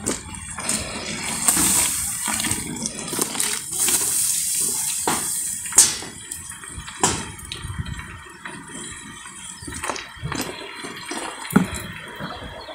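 Hot dye bath streaming and splashing back into a large metal pot as a wet skein of wool is lifted out of it and left to drain, the flow heaviest in the first half, with a few sharp clicks and drips.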